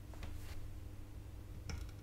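A few faint ticks from hand soldering work, a soldering iron and desoldering wick worked on a graphics card's capacitor pads, over a low steady hum.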